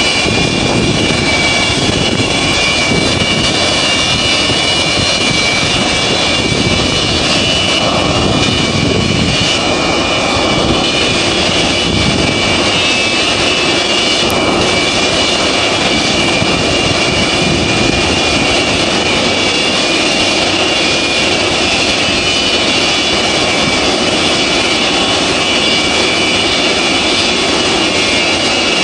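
Antonov An-225 Mriya's six turbofan engines running at idle with the aircraft standing still: a steady, loud rushing noise with a high whine held at one pitch.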